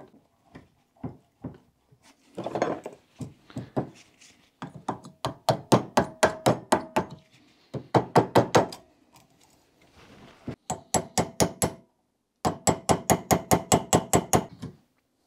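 Hammer blows on a punch driving a rusty pad-retaining pin out of a brake caliper. The metal-on-metal strikes come in quick runs of about four or five a second, with a ringing note.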